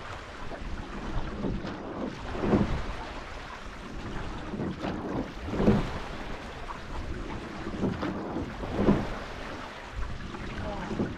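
Rowing eight moving on flat water: a rush of water along the hull with each stroke, coming about every three seconds, over steady wind noise on the microphone.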